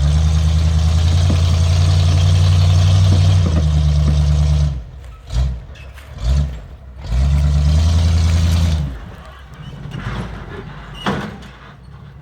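Off-road vehicle engine pulling under throttle for about five seconds. It drops back, gives two short blips, pulls again for about two seconds, then eases off to a low idle. A single sharp knock comes near the end.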